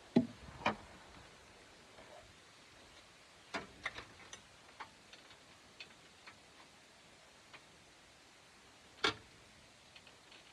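Scattered sharp metallic clicks and knocks of hand tools working on a car engine, with a cluster of lighter ticks in the middle and one loud clank near the end.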